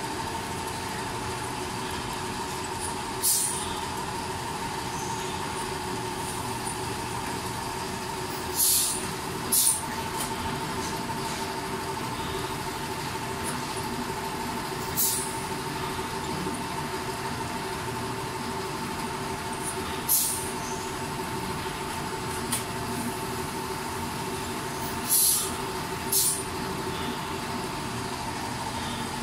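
Fully automatic four-head oil filling and capping machine running with a steady hum, broken every few seconds by short hisses of pneumatic air exhaust, twice in pairs about a second apart.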